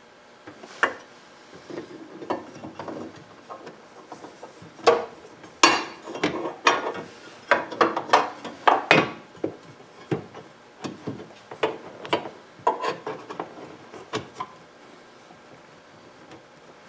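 A stiff dashboard trim panel being manhandled into place under a steering column: irregular scraping, rubbing and sharp knocks and clicks, busiest in the middle and thinning out toward the end.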